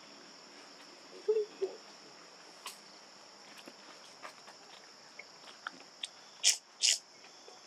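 Steady high-pitched insect chorus, with scattered clicks. Two brief low sounds come about a second and a half in, and two short loud noises near the end.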